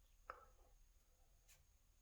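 Near silence: room tone with a couple of faint, brief clicks.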